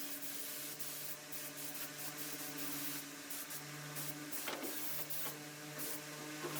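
Paint spray gun hissing in short, repeated bursts as chassis black paint is sprayed, over a steady low hum.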